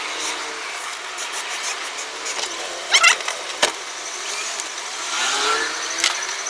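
Street traffic heard from a moving vehicle: a steady wash of engine and tyre noise. A brief, shrill, warbling sound about three seconds in and a sharp click just after it. An engine revving up near the end.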